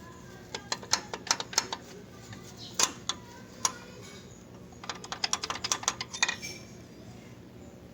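Sharp, irregular clicks and clinks of small hard parts being handled, likely engine parts from the teardown. There is a flurry of clicks about a second in, two single louder clicks, then a faster flurry near the end, over a faint steady hum.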